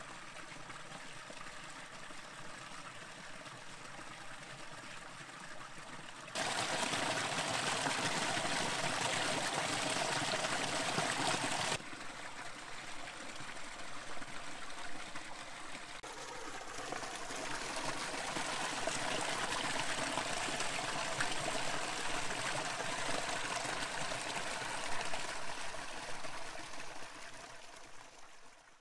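A small stream trickling over rocks and between boulders in a dry desert wash. It steps up louder from about six seconds in to about twelve seconds in, then drops back to a steady level.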